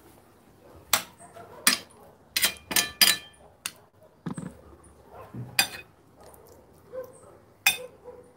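Metal serving spoon clinking against ceramic plates as potato salad is dished out: about seven sharp clinks, several close together in the first three seconds, then a couple more spread out.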